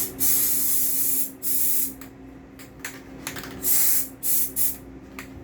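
A spray hissing in bursts onto a twistlock's parts: one burst of about a second at the start, then a string of shorter puffs.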